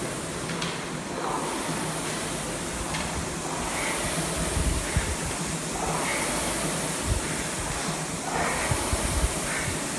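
Concept2 rowing machine's air-resistance flywheel whooshing as it is rowed, swelling and fading with the strokes, with a few light knocks.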